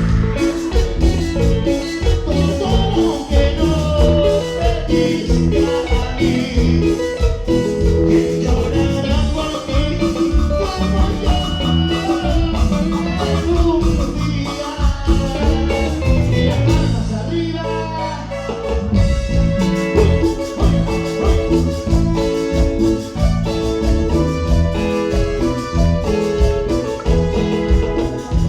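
A live cumbia band playing an instrumental stretch of a Latin dance tune with a steady beat. About two-thirds of the way through, the beat drops out briefly under a held low note.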